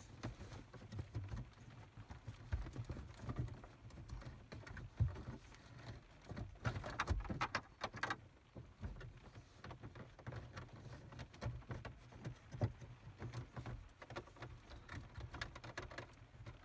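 Scattered light clicks, knocks and rustling of plastic trim and cables being handled and pushed into the dashboard radio slot.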